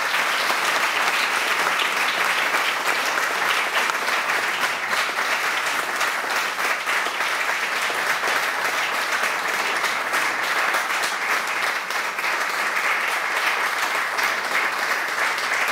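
A roomful of people applauding, many hands clapping at once in a steady, unbroken round of applause.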